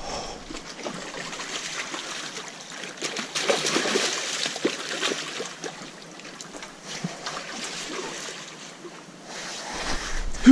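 Rushing stream water, with scattered scrapes and knocks of hands and shoes on wet boulders, and one louder knock at the end.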